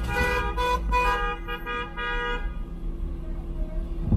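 A car horn honking in a quick run of short toots that ends about two and a half seconds in, over the low rumble of a vehicle.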